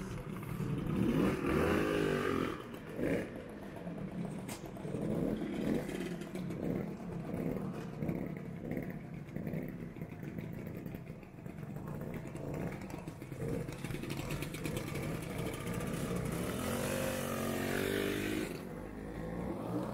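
Classic motor scooters idling and pulling away one after another. The engines rev up and down about two seconds in and again near the end.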